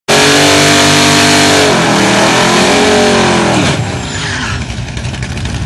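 Burnouts at a drag strip start line: a 1957 Ford Sedan Delivery drag car and a diesel pickup spin their rear tyres with engines revving high and tyres squealing. The sound holds steady at first, then wavers in pitch and cuts off about three and a half seconds in, leaving the engines running lower.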